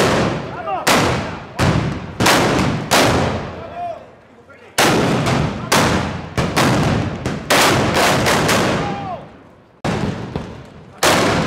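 Black-powder arquebuses fired in a ragged volley by many festival troops: about twenty sharp blank shots, irregular and overlapping, each with an echoing tail. Short lulls come about four seconds in and just before ten seconds.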